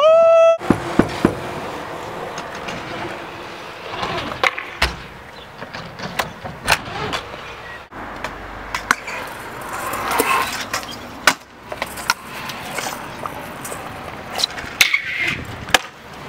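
Freestyle stunt scooter wheels rolling on concrete skatepark surfaces, with repeated sharp clacks and knocks from tricks, landings and deck or peg impacts. A brief, loud, high-pitched squeal opens it.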